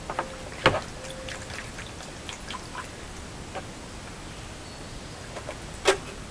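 Hands squeezing and kneading a thick slurry of guar gum, kerosene and water in a plastic bowl: scattered wet squelches and drips, with two louder splats, one under a second in and one near the end.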